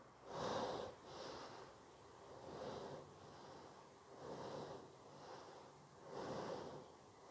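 A woman's slow, steady breathing, soft and even, with a stronger and a weaker breath alternating about once a second: roughly four full in-and-out cycles.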